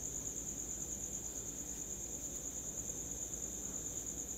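A steady, high-pitched continuous tone, like an insect trill or an electronic whine, over a low hum and hiss.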